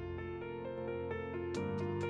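Instrumental background music with held keyboard notes changing in a slow melody.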